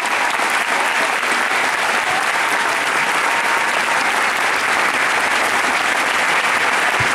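An audience applauding with steady, dense clapping after a concert band piece has ended.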